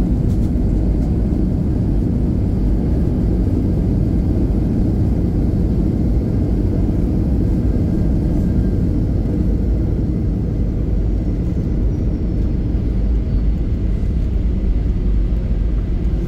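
Steady low rumble inside an airliner cabin as the plane taxis after landing, the engines and the wheels rolling on the taxiway making an even drone.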